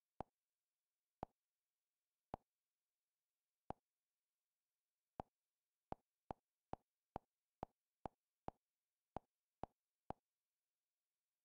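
Google TV menu navigation sound: a short soft click each time the on-screen selection moves, about fifteen in all, a second or more apart at first and then about two a second.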